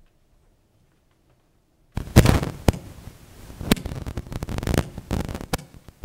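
Handling noise on a close lectern microphone: a loud crackling rustle with several sharp knocks, starting about two seconds in and stopping suddenly near the end.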